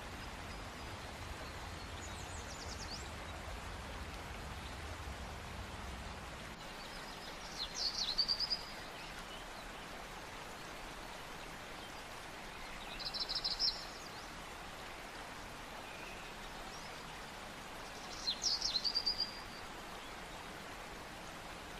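Birds calling over a steady watery hiss: short bright trills come about every five seconds, the loudest near eight and eighteen seconds in.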